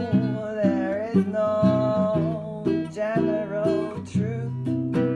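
Music: acoustic guitar picking steady notes under a held, wavering melody line.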